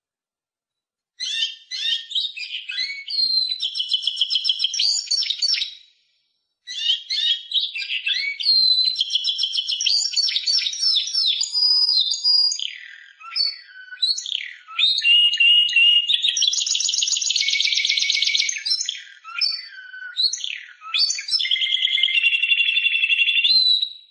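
A Spanish Timbrado canary singing long phrases of fast trills and rolling notes. The song starts about a second in and pauses briefly near six seconds.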